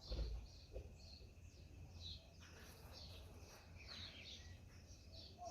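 Small birds chirping: many short, high chirps scattered throughout, faint. A brief low thump comes right at the start.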